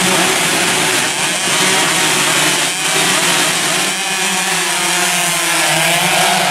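A grid of two-stroke 116cc underbone racing motorcycles revving together in a dense, buzzing chorus at the start line. Near the end the engines rise in pitch as the pack accelerates away at the race start.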